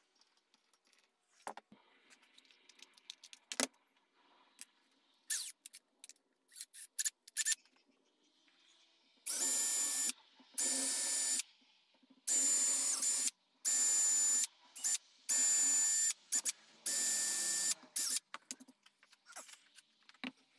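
Cordless drill running in about six short bursts of roughly a second each, drilling holes into a wooden stool seat. Before it, a few light clicks and short rattles of handling.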